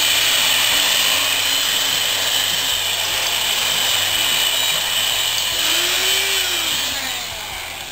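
Electric drill running steadily as it bores a hole through a wooden plank, then dying away near the end.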